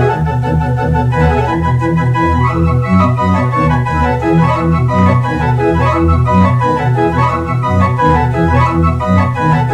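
Small two-stop Positiv pipe organ playing a lively piece, quick-changing notes over a moving bass line.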